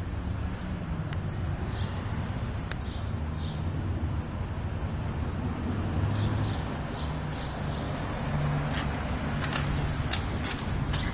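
Outdoor street ambience: a steady low rumble of traffic and wind on the microphone, with a small bird chirping short falling notes on and off.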